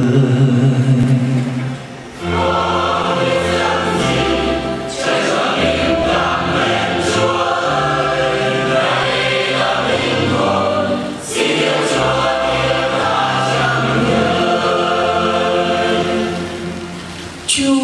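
Choir singing a Vietnamese hymn in long held phrases, the voices dropping away briefly about two seconds in and again near the end between phrases.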